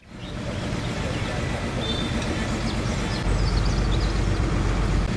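Garbage truck engine running in street ambience, a steady low rumble that grows louder about three seconds in.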